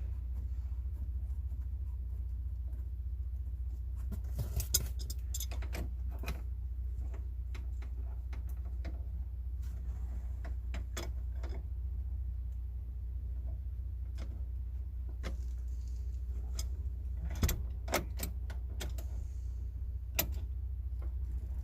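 Scattered metallic clinks and taps of tools and small metal parts being handled during an air-conditioner installation, with a few sharper knocks in the middle and near the end, over a steady low hum.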